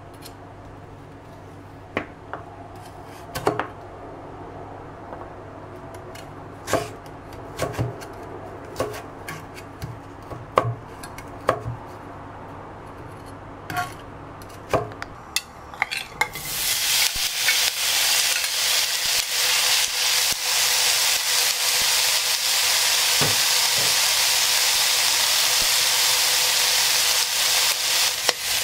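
Kitchen knife chopping candied winter melon on a cutting board, a run of sharp knocks about once a second. About sixteen seconds in, a loud, steady sizzle starts suddenly as diced pork fries in a hot wok.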